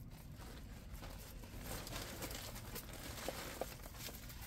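Faint rustling and crinkling with scattered light clicks from handling a diamond painting canvas.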